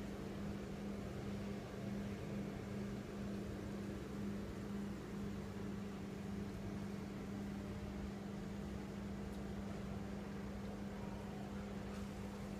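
Aquarium filter pump running with a steady low electric hum and a faint hiss.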